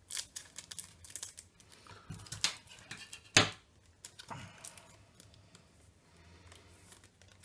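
Scissors snipping through a foil trading-card booster pack, with the crinkle of the foil wrapper. A loud sharp click comes about three and a half seconds in and another a second later, then softer rustling as the pack and cards are handled.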